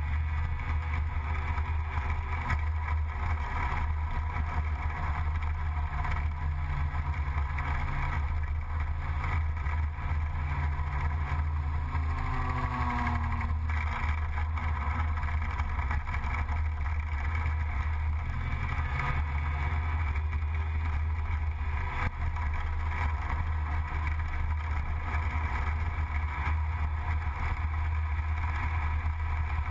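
Gilera Runner 180 scooter's two-stroke single-cylinder engine running steadily at cruising speed, heard from on board. About twelve seconds in, a tone briefly glides downward.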